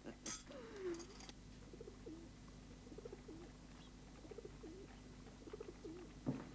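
Pigeons cooing faintly, a series of short low wavering calls repeating about once or twice a second, with a brief rustle about a second in.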